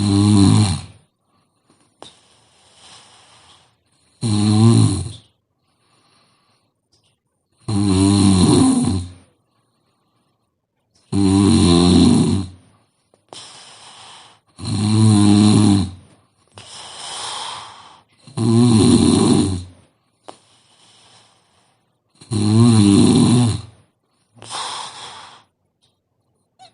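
A young woman snoring in deep sleep: seven loud, low, buzzing snores, each about a second long and coming every three and a half to four seconds, with fainter breaths between them.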